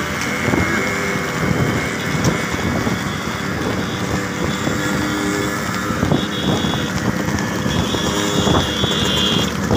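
Motorcycle engines running steadily at speed, with wind noise on the microphone.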